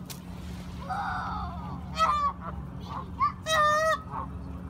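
Canada geese honking: several separate calls, with a longer honk about three and a half seconds in.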